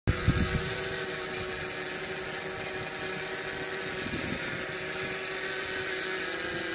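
GoPro Karma quadcopter's motors and propellers humming steadily in flight, a constant whirring drone with one held tone.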